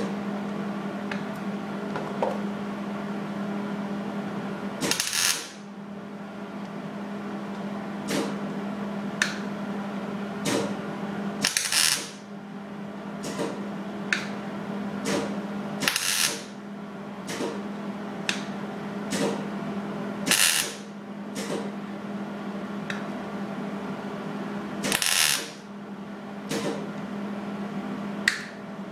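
MIG welder tack-welding a butt-jointed sheet-metal car body panel: five short crackling tacks of about half a second each, with many single sharp pops and clicks between them, over a steady low hum.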